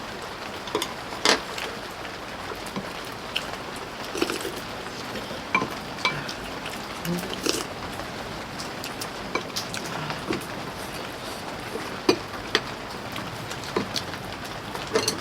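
Steady rain falling, with close-up eating sounds over it: chewing and slurping of stew, and irregular small clicks of a spoon or chopsticks against a bowl.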